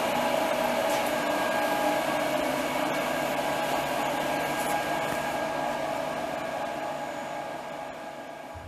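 Morton 830 PCB preheater running: a steady whirring machine hum with a few steady tones from its fans, gradually fading out toward the end.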